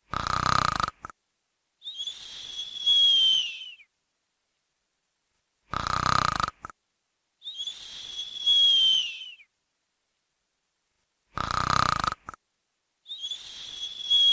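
Snoring: a short rattling snore followed by a longer whistling breath that drops in pitch at its end. The cycle repeats evenly, three times, about every six seconds.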